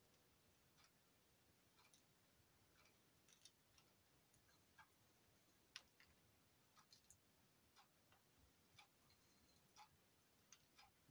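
Near silence, with faint regular ticking about once a second, typical of a wall clock, and a few other light clicks in between.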